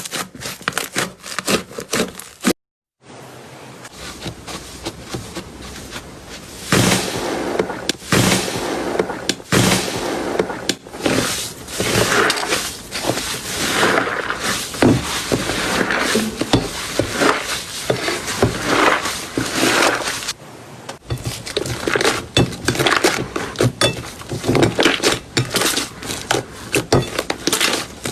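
Slime being squeezed and poked by hand, giving dense, irregular crackling and popping clicks, across three clips cut together about 2.5 s and 20.5 s in.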